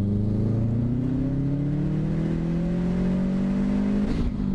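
Turbocharged 2.5-litre flat-four of a Subaru WRX STI hatchback running on an E85 tune, heard from inside the cabin under acceleration. The engine note climbs steadily for about four seconds, then a short hiss and a drop in pitch come with an upshift.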